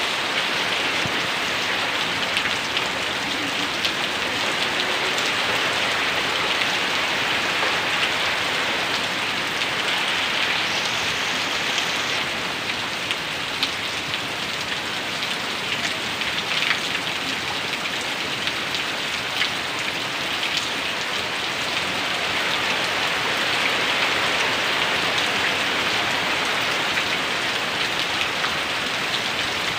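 Heavy rain falling steadily, an even hiss of drops with scattered small ticks.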